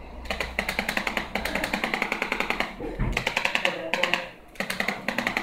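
Handheld percussion adjusting gun rapidly tapping against a patient's back during a spinal adjustment, a fast even run of strikes that stops briefly twice and then resumes.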